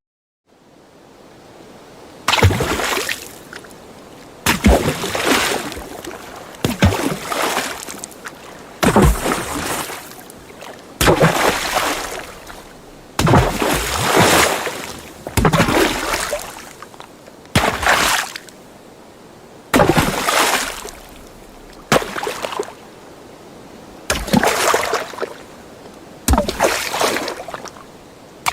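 A series of separate water splashes, about one every two seconds: each a sudden impact into water followed by sloshing that dies away within a second or two.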